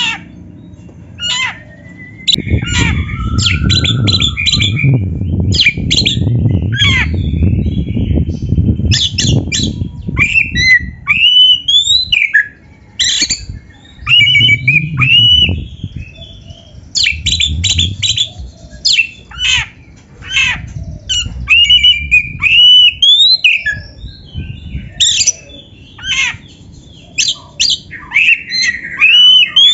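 Oriental magpie-robin (kacer) singing loudly and without pause: a rapid run of sharp harsh calls, squawks and rising whistled notes. A low rumbling noise lies underneath for the first third and again briefly in the middle.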